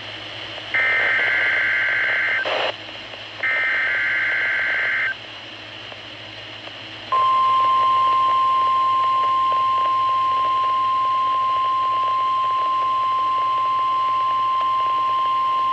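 NOAA Weather Radio test signals from a Midland WR120 weather radio. Two harsh digital bursts of screeching data tones of just under two seconds each are the SAME header that sets off alert receivers, with a click at the end of the first. After a gap of hiss, the steady 1050 Hz warning alarm tone starts about seven seconds in and holds unbroken: this is the Required Weekly Test.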